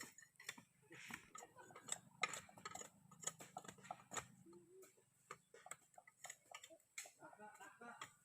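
Faint, irregular clicks and light knocks.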